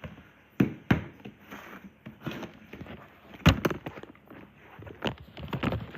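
Irregular knocks and taps of small objects being handled and set down, with light rustling between them; the sharpest knock comes about three and a half seconds in.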